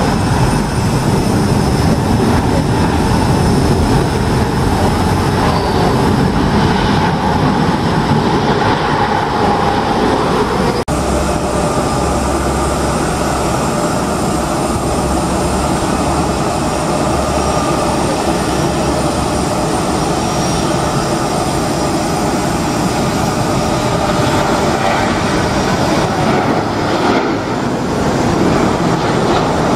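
Jet airliner engine noise, loud and steady. First an Emirates Airbus A380's four GP7200 turbofans on the runway, then, after an abrupt cut about eleven seconds in, a Boeing 737-800's CFM56 engines at takeoff thrust as it rolls down the runway and climbs away.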